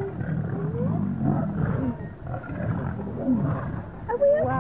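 Lions growling in a fight: a continuous low rumble with short higher cries that rise and fall in pitch over it.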